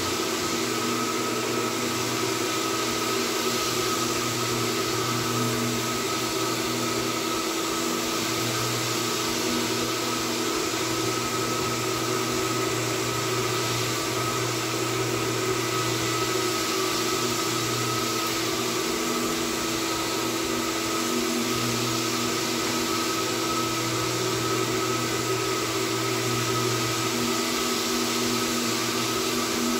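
A floor sanding machine running on a hardwood floor with its canister dust vacuum drawing through the hose: a steady motor whine and suction hiss, with a low hum that rises and falls every few seconds.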